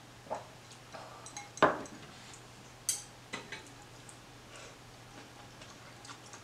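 Scattered clinks and knocks of a drinking glass being set down and chopsticks touching a steel pot, with the loudest knock about a second and a half in and quieter eating sounds between.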